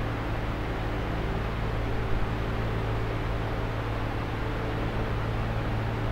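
Steady background hum and hiss of the room, with no distinct sounds standing out.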